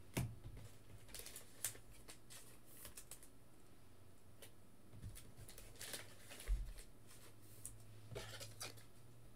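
Faint handling of trading cards: scattered light slides, taps and clicks as cards are picked up and sorted, with one soft low thump past the middle.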